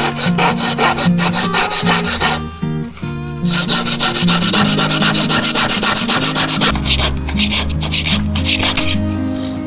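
Handsaw cutting through a wooden board in fast, even back-and-forth strokes, about five a second, stopping for about a second a little over two seconds in and then carrying on. Background music plays underneath.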